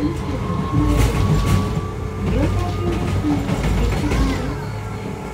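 Hiroshima Electric Railway 3900-series tram, refitted with a Toyo Denki hybrid SiC VVVF inverter drive, running, heard from inside the car. Wheels rumble on the rails with a few sharp knocks, under a thin whine that slowly rises in pitch.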